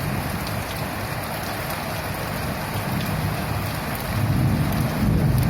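Steady rain falling on surfaces. A low rumble swells about four seconds in and holds to the end.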